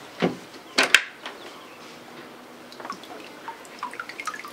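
Fold-down transom swim platform of a Hanse 455 sailing yacht being unlatched and lowered: two sharp knocks in the first second, then a run of light clicks near the end.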